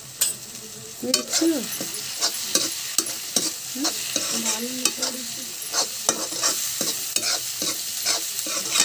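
Potato, onion and carrot pieces being stir-fried in a wok: a slotted spatula scrapes and tosses them against the pan in quick repeated strokes over a steady sizzle. There is one knock just after the start, and the stirring picks up about a second in.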